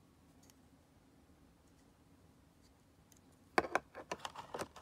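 Hard plastic clicking and knocking as a shaver attachment head is pulled out of a clear plastic packaging tray. It comes as a quick cluster of sharp clicks near the end, after a quiet stretch.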